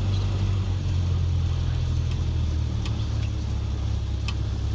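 Cessna 172S's four-cylinder Lycoming engine and propeller droning steadily, heard from inside the cabin during the landing rollout, with a couple of faint clicks about three and four seconds in.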